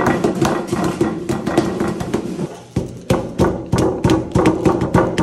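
Wooden rolling pin beating a parchment-wrapped block of butter on a wooden worktable, flattening it for laminating croissant dough: a run of sharp thuds, about three a second, with a short pause near the middle.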